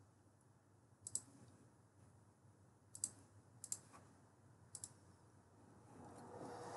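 Computer mouse button clicks, some single and some in quick pairs, spaced a second or two apart, with near silence between them.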